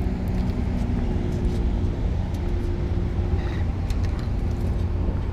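Strong wind buffeting the microphone as a steady low rumble, with a faint steady engine hum underneath and a few small ticks.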